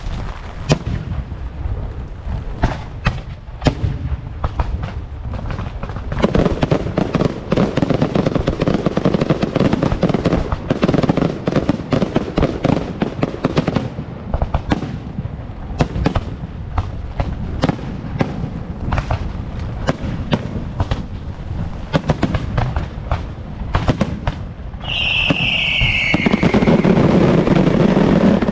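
Fireworks and firecrackers going off: a long series of sharp bangs, with a dense run of rapid crackling from about six to fourteen seconds in. Near the end a falling whistle is followed by a loud, steady rush.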